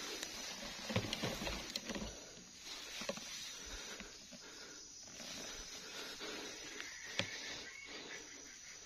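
Rustling of leaves and undergrowth with scattered soft knocks, a cluster about a second in and a sharper one near the end.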